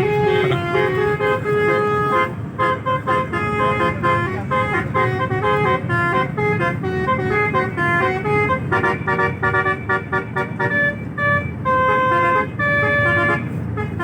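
A bus's multi-tone 'telolet' air horn playing a quick melody, note after note, over a low rumble.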